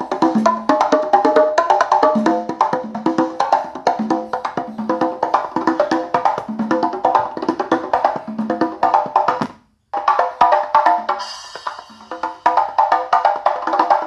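Music with a percussive, wood-block-like beat playing through a bare 6-inch ACR 660 mid-high speaker, as a sound test of the speaker with and without a nonpolar electrolytic capacitor in series. About ten seconds in the sound cuts out, comes back weaker and crackly for about two seconds while the alligator-clip leads are handled, then plays fully again.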